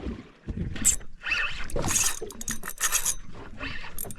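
Fishing reel being wound in irregular spurts, its gears clicking and whirring, with clattering handling noise.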